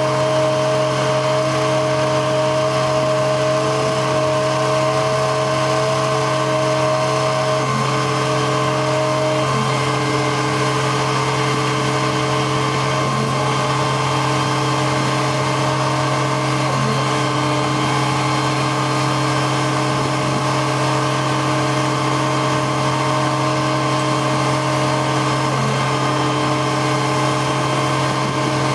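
1997 GMC C7500 digger derrick truck running steadily with its hydraulics working the boom and auger: a constant hum with steady tones that change pitch several times as the controls are worked.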